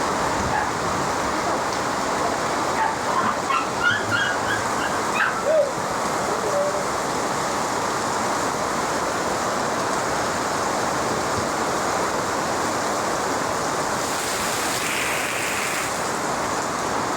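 Heavy rain falling steadily, a dense even hiss. Between about three and six seconds in, a few short calls sound over it.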